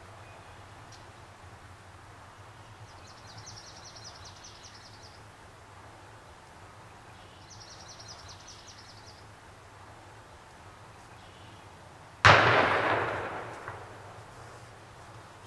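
A single shotgun blast about twelve seconds in, a 3.5-inch shell fired at a wild turkey tom, its report ringing out and dying away over about two seconds. Before it, a bird trills twice over quiet outdoor background.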